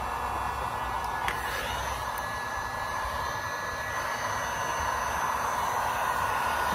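Handheld electric heat gun blowing steadily, a constant fan-and-air hiss.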